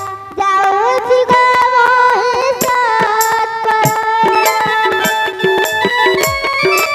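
Indian stage music with a sliding melody line and a steady beat of bright cymbal-like strikes, about two a second; the melody moves to steadier held notes about halfway through.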